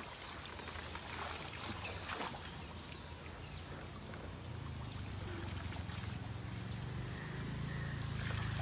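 Shallow river water splashing and trickling around a wading elephant and man, with a few sharper splashes. A low steady hum comes in and grows louder from about halfway.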